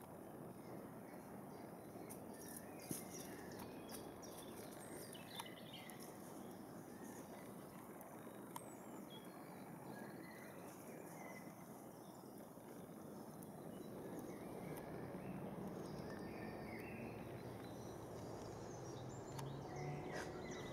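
Quiet woodland ambience: a steady low hiss with scattered short bird chirps and a few faint clicks.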